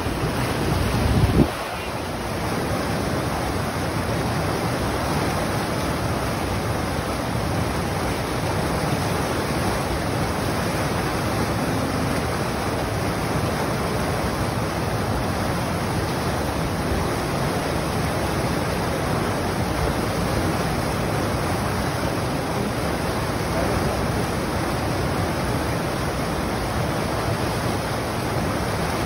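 Whitewater rushing steadily through a man-made concrete rapids channel, a continuous roar of churning water. A louder low rumble in the first second and a half stops abruptly.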